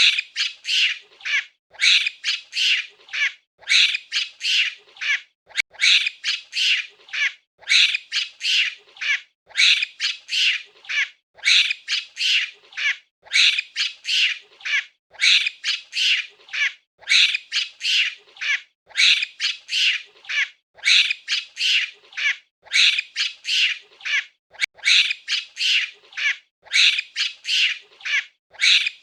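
A monkey's high-pitched calls, given in quick runs of four or five, a run about every two seconds, repeating evenly.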